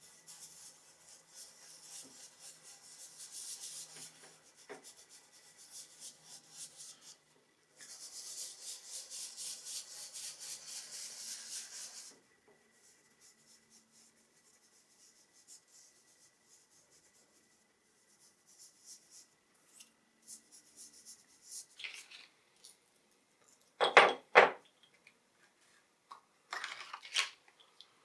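Fingers rubbing and blending dry soft pastel on thin paper: fast, scratchy, hissing strokes in two stretches of several seconds each. After a quiet spell, a few sharp clacks near the end as pastel sticks are handled on the hard tabletop.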